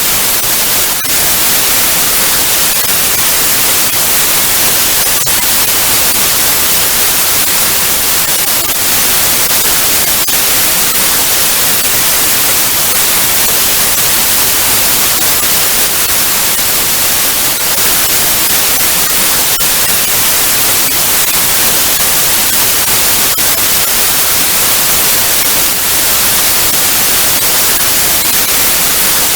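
Loud, steady hiss of analogue TV static, brightest in the treble, with faint brief crackles scattered through it.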